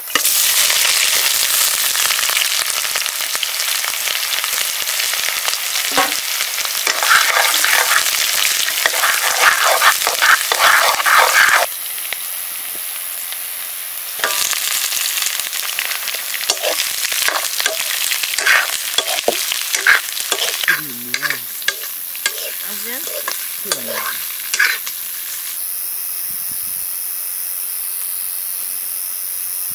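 Buff (buffalo) meat curry sizzling in hot oil in a pan while it is stirred, with frequent short scrapes and clicks of the spoon against the pan. The sizzle drops back about 12 seconds in, then picks up again.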